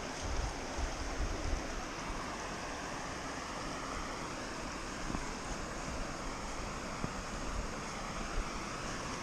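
Steady rush of flowing creek water, with wind buffeting the microphone as low rumbles in the first couple of seconds.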